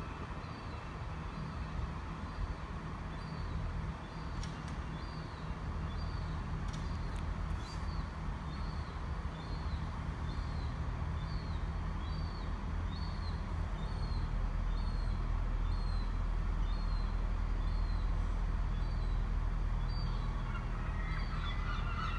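Steady low rumble of diesel train engines, growing louder about two-thirds of the way through. Above it a bird repeats a short high chirp about once every 0.7 s.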